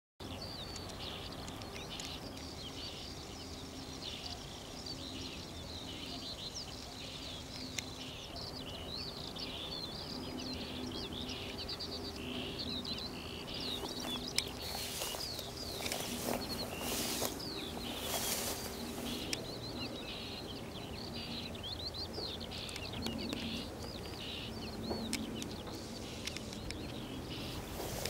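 Small songbirds singing and chirping continuously, many quick overlapping chirps and trills, over a steady low hum, with a few brief rushes of noise in the middle.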